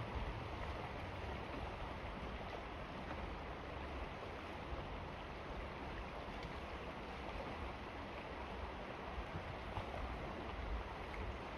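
A wide mountain river running fast over riffles, a steady rushing of water.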